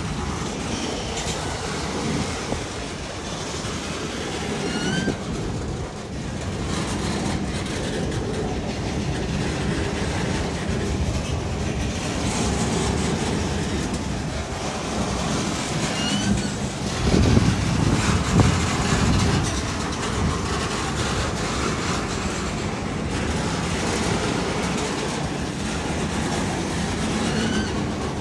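Norfolk Southern freight train's gondola cars rolling past, a steady clatter and rumble of wheels on the rails. It is broken by a few brief high rising squeaks and grows louder and heavier for a couple of seconds about two-thirds of the way through.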